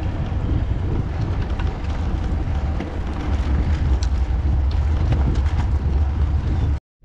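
Wind buffeting the microphone, a steady loud rumble with hiss, which cuts off abruptly near the end.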